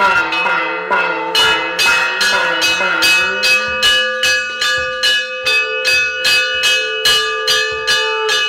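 Hindu temple bells and metal percussion struck rapidly in worship, about three strokes a second, each stroke ringing on over the next.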